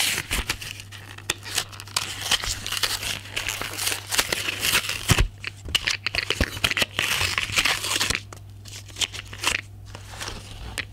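Paper backing card being torn and peeled off a plastic blister pack, with the plastic crinkling and crackling. It is dense and busy for about eight seconds, then eases to a few scattered crinkles and clicks as the pack is handled.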